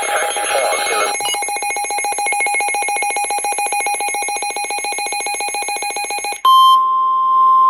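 Emergency alert broadcast tones: about a second of noisy crackle, then a buzzy, rapidly pulsing alert tone for about five seconds, which cuts over near the end to a loud, steady single-pitch warning tone of the kind used as the weather-radio alarm.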